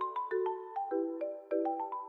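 Intro music: a quick, bright melody of short struck notes over a repeating low two-note figure.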